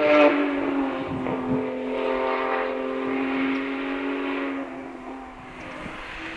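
Distant rally car engine held at a steady high note along the stage, slowly dropping in pitch and fading away about five seconds in.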